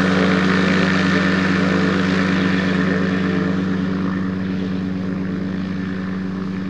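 Dominator gyroplane's engine and pusher propeller running with a steady drone, slowly fading as the gyro moves away across the ground.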